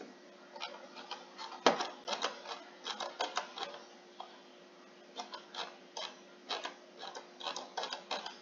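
Irregular clicks and taps of a computer mouse and keyboard, several a second in uneven bunches, the sharpest about a second and a half in, over a faint steady hum.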